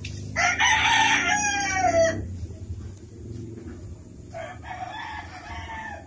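A rooster crowing: one loud, drawn-out crow of nearly two seconds that falls in pitch at its end, then a second, fainter crow a couple of seconds later.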